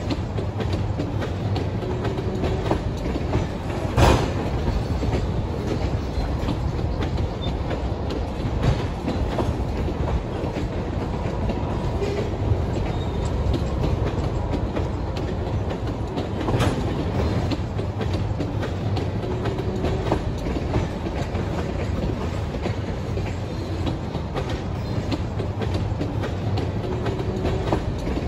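Freight train of tank cars rolling past: a steady rumble of wheels on rail with a running clickety-clack. There is a sharp metallic bang about four seconds in and another about two-thirds of the way through.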